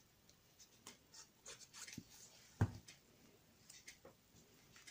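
Faint paper handling: light rubbing and scratching of card pieces being positioned and pressed down for gluing, with small clicks and one sharper tap about two and a half seconds in.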